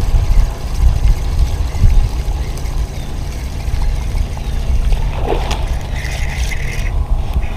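Wind rumbling on the action camera's microphone on a fishing boat, while a spinning reel is cranked fast to bring a topwater lure in across the surface. A brief higher sound cuts in about five seconds in.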